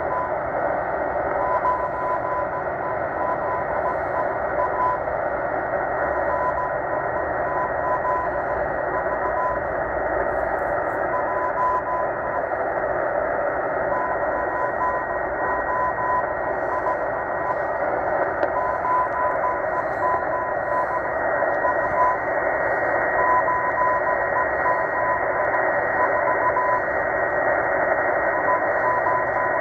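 Morse code from the M12 Russian numbers station on a Tecsun H-501x shortwave receiver in upper sideband mode: a tone of about 1 kHz beeping in dots and dashes over steady, narrow-band static hiss, with a faint steady whistle above it.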